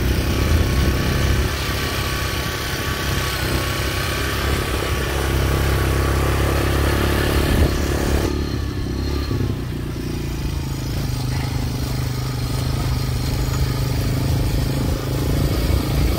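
Honda Fat Cat TR200's single-cylinder four-stroke engine running steadily as it is ridden, with an abrupt change in the sound about halfway through.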